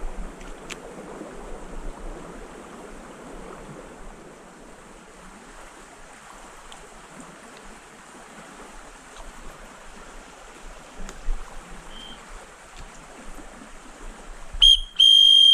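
River water flowing steadily. Near the end a loud, high, steady whistle-like tone sounds for about a second, the loudest sound here.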